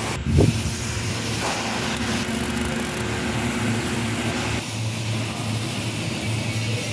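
Manual stick (arc) welding: the electrode arc crackling and hissing steadily while tack-welding steel flat bars, with a low steady hum underneath. A short sharp knock comes just after the start, and the hiss thins a little past the middle.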